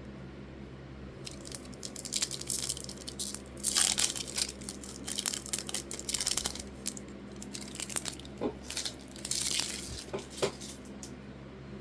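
A trading card pack's wrapper being torn open and crinkled, in a run of irregular tearing and rustling bursts, loudest about four seconds in and again near ten seconds.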